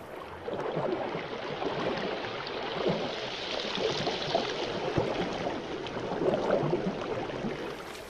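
Swamp water sloshing and gurgling with small splashes, as an anaconda moves through it.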